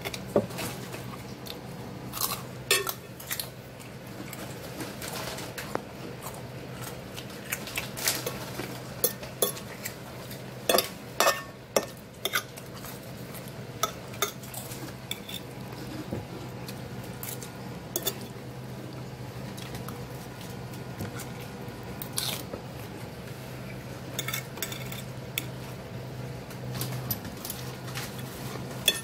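Metal fork clinking and scraping against a ceramic plate while picking through dressed salad, in irregular clicks, some of them in quick clusters, over a steady low hum.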